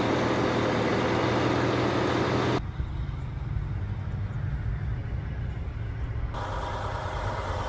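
Volvo semi truck's diesel engine idling steadily. About two and a half seconds in, the sound drops abruptly to a quieter low engine note, and more sound comes back near the end.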